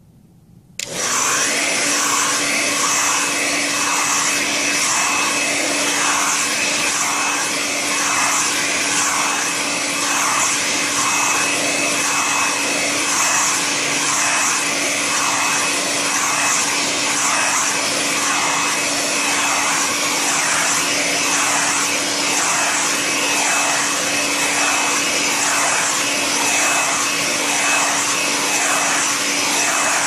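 A hair dryer is switched on about a second in and runs steadily, a motor and fan hum over the rush of blown air, heating the sensors to hold them at about 40 °C. It cuts off at the very end.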